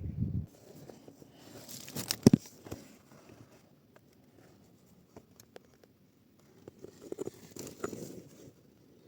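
Handling noise: two spells of rustling and crinkling with scattered small clicks, and one sharp knock about two seconds in.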